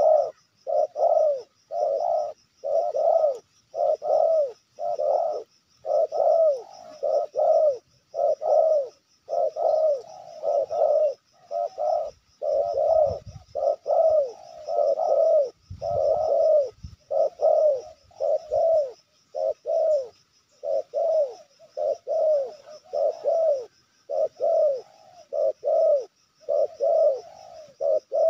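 Spotted dove (tekukur) cooing without pause: a continuous run of low, full coos at about two a second.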